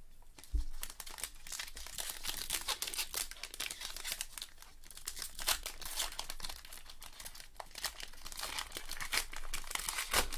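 Foil trading-card pack wrapper crinkling as it is torn open and the cards are pulled out, a dense, continuous crackle.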